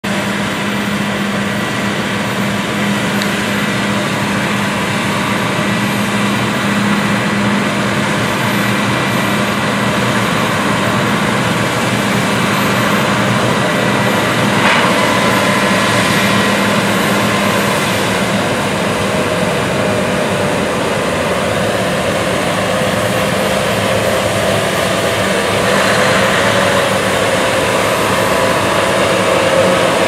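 Combine harvester and a Claas Xerion four-wheel-drive tractor pulling a grain cart, their engines and machinery running together in steady loud noise. A higher wavering hum comes in about two-thirds of the way through as the tractor comes alongside the combine.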